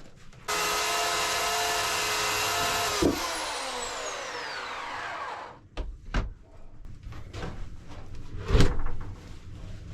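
A power saw starts suddenly and runs at a steady high speed, then is switched off about three seconds in and winds down, its pitch falling over a couple of seconds. A few sharp knocks follow, the loudest a little over a second before the end.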